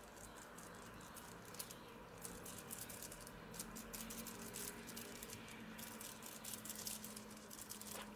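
Faint, irregular small clicks and scratches of a thin stick stirring turquoise pigment into a puddle of UV resin on aluminium foil.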